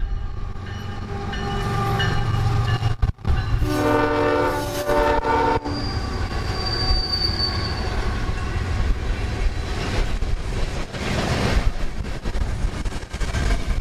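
Union Pacific diesel locomotives rumbling past at the head of an empty coal train, with a short horn blast about four seconds in. A thin high wheel squeal follows, then the empty steel coal hoppers roll by.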